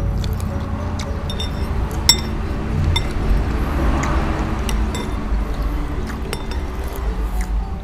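Spoons clinking against soup bowls during a meal of bakso meatball soup, with scattered sharp clinks throughout and the loudest about two seconds in.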